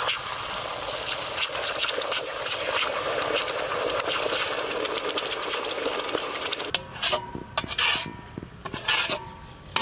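Hot oil sizzling steadily in a wok as red chilli sauce is poured onto fried onions and garlic. From about seven seconds in, a metal ladle scrapes and stirs around the wok in several separate strokes.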